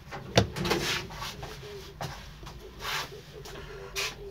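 A sharp click, then several short rubbing or scraping noises.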